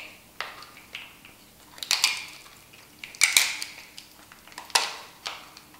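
Crab shell being cut and cracked apart: about five sharp crunches and cracks, spaced a second or so apart.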